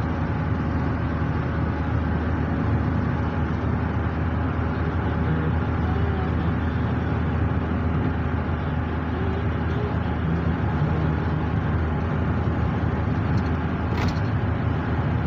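Steady road and engine noise inside a moving car's cabin, a constant low hum and tyre rumble at cruising speed.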